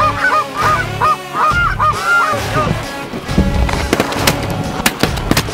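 Goose call blown in quick, clucking honks at geese overhead, a string of short notes for the first couple of seconds. Then, about three and a half seconds in, several shotguns start firing in a rapid volley of sharp bangs.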